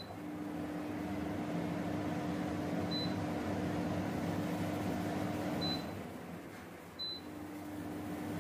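Hindware Ripple 90 kitchen chimney's blower fan running with a steady hum while a hand is waved under its motion sensor to change the fan speed. Several short high beeps acknowledge the gestures. The hum drops away near six seconds and picks up again about a second later.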